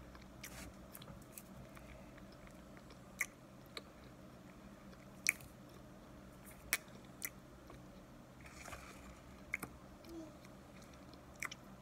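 Crisp mixed starch chunks (cornstarch and wheat starch) being bitten and chewed, with sharp, separate crunches every second or two and softer chewing between them.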